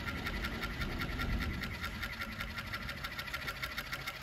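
Kansai Special NR9803GCC cylinder-bed cover stitch machine sewing at a steady speed: a rapid, even stitching rhythm over a steady whine. It is running a cover stitch over an overlocked seam fed through its front attachment.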